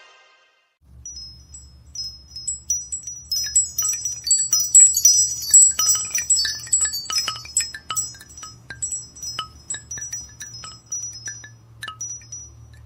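A MigeMax A790 Android phone ringtone of wind-chime-like tinkling: many short, high chime notes that start about a second in, grow denser, then thin out near the end, over a steady low hum.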